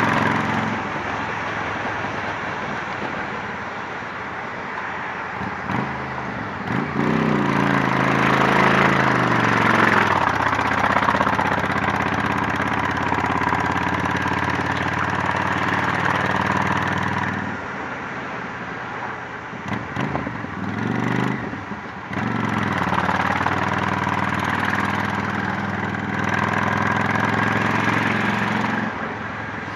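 Honda Shadow 750's V-twin engine running through a Torbal 3-inch sport exhaust while riding on the highway. The engine note rises as it accelerates about seven seconds in, drops off briefly a few times past the middle as the throttle is eased, then pulls again, over a steady rush of wind.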